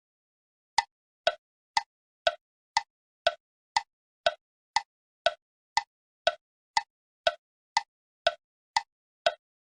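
Sound effect of short, sharp clicks, two a second, alternating between a higher and a lower note like a tick-tock, starting after nearly a second of silence.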